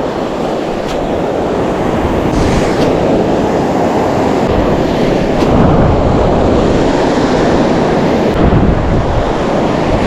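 Surf washing on the shore, with wind buffeting the microphone.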